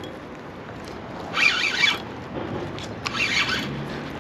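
Spinning reel buzzing in two short bursts, about a second and a half in and again about three seconds in, while a hooked pike is being fought.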